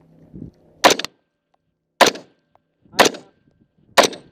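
Rifle shots, four sharp reports about a second apart, each with a short echo.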